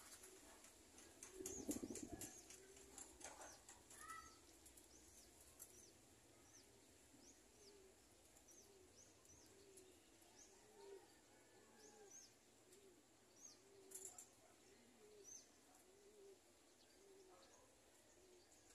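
Domestic pigeons cooing faintly and repeatedly, with small birds chirping high in the background. A brief louder noise about two seconds in.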